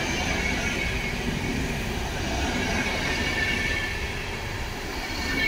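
PKP Intercity passenger coaches rolling past alongside the platform: a steady rumble of steel wheels on the rails, with a faint high wheel squeal.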